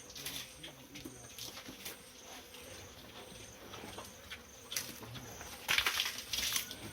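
Pigs in a stall munching feed: scattered crunching and rustling, loudest near the end.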